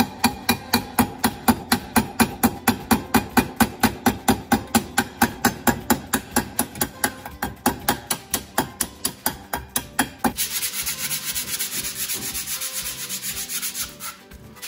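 A hand file rasping back and forth inside the hub of an aluminium Mercury Black Max boat propeller, about four strokes a second, the propeller ringing with each stroke. About ten seconds in this gives way to a steadier hiss of hand-sanding on the sterndrive's painted casing.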